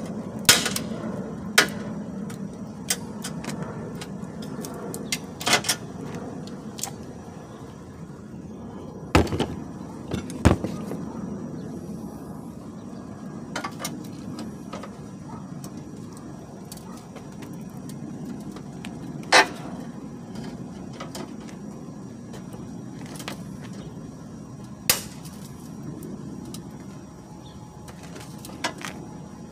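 Irregular sharp clicks, knocks and cracks of plastic and metal as the crash-damaged front end of a car is pulled at by hand and levered with a pry bar, over a steady low hum.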